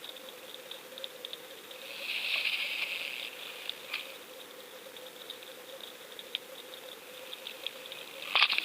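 Underwater crackling and rattling of sand and debris swept along the sea floor by strong current, with a louder surge about two seconds in and a sharp rattle near the end. A faint steady hum runs underneath.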